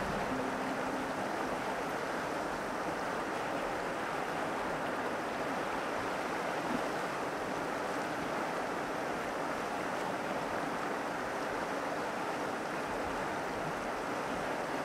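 Steady rushing of a shallow mountain river flowing over rocks, even and unbroken throughout.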